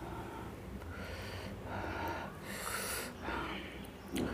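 A person eating with his hands, breathing noisily in short hissy breaths through the nose and mouth between mouthfuls, with a short click near the end as food goes to the mouth.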